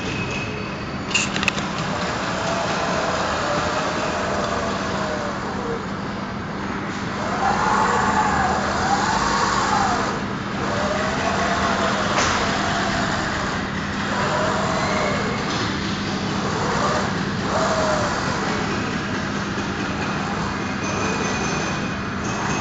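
Servo motors driving the six joints of a Hexaglide parallel-mechanism CNC machine, their whine rising and falling in pitch again and again as the axes speed up and slow down through each move, over a steady hum. A couple of sharp clicks sound about a second in.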